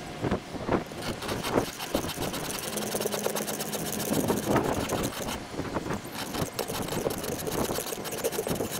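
Stihl 2-in-1 file guide rasping across the cutters of a chainsaw chain in repeated hand strokes, its round and flat files sharpening the teeth and rakers together. The longer teeth on one side are being filed down to match the other side so the chain cuts straight again.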